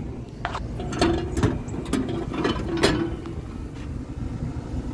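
Plastic delivery-bin flap of a Coca-Cola bottle vending machine clattering as a plastic bottle of Coke is pulled out: a handful of sharp clicks and knocks over a steady low hum.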